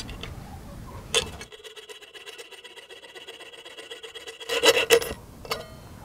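Jeweler's saw cutting thin sheet metal: fine sawing strokes with a ringing metallic tone, loudest about three-quarters of the way through. A sharp metallic clink follows.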